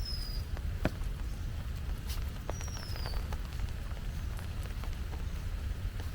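Footsteps and scattered ticks on a wet forest path over a steady low rumble, while a bird gives a short descending whistled call at the start and again about three seconds in.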